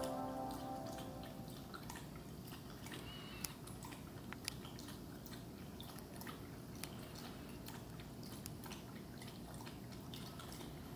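Closing background music fading out within the first second or two, leaving faint room tone with scattered small clicks.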